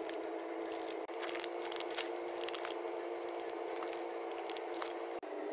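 Foil-lined plastic wafer wrapper crinkling and rustling in nitrile-gloved hands as the wafer bar is slid out, in small scattered crackles over a steady background hum.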